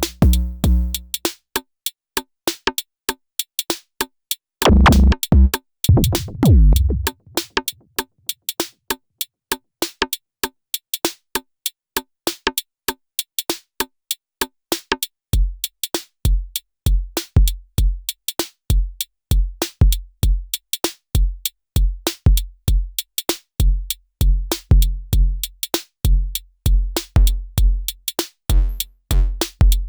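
Elektron Syntakt drum machine playing an electronic beat: fast ticking hi-hat-like clicks run throughout, while the deep kick drums drop out about a second in. A low swelling boom sounds around five to seven seconds, and the kicks come back about halfway through.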